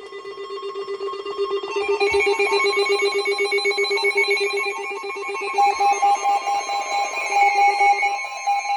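Electronic alarm tone, a fast-pulsing trill, fading in over the first two seconds, with higher tones joining about two seconds in.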